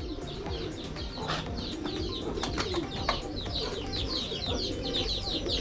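Many caged fancy pigeons cooing together, with lots of short high chirps and a few sharp clicks mixed in.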